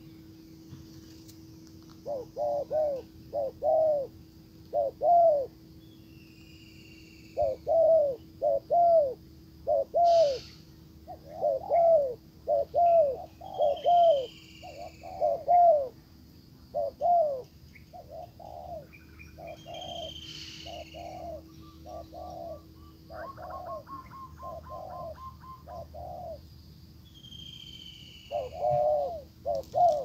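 Spotted doves cooing: a long run of short, repeated coos, loud through the first half, softer for a while, then loud again near the end. A few brief high chirps from small birds sound now and then.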